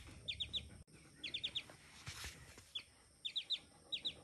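A baby chick peeping: short, high peeps that each drop in pitch, coming in quick runs of two to four and repeating about once a second.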